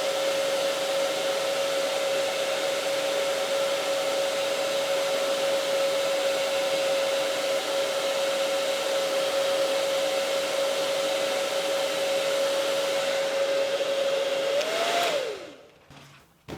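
Hair dryer blowing steadily with a constant motor whine, warming freshly applied grip tape. About fifteen seconds in it is switched off: the whine briefly rises, then falls as the motor spins down.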